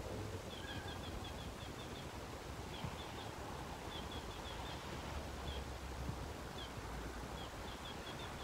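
Faint small-bird chirps, short high notes in quick runs that come several times, over a steady outdoor background hiss with a low rumble.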